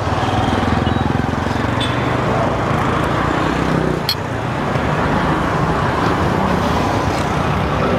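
Street traffic: cars and motorcycles passing on a busy road, their engines and tyres making a steady hum, with one short sharp click about four seconds in.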